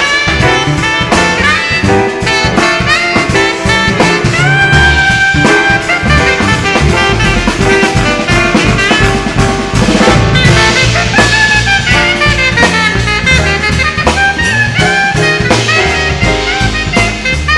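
A live band playing with horns over a busy drum kit, the horn lines holding and bending notes.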